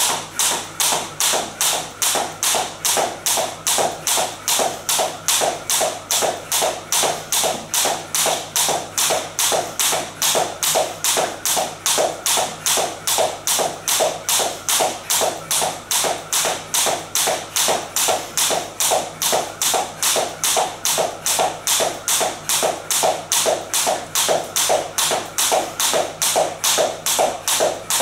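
Jump rope skipping at a steady pace: a thin cable rope tapping a wooden floor with each turn, together with sneakers landing, about two to three even taps a second.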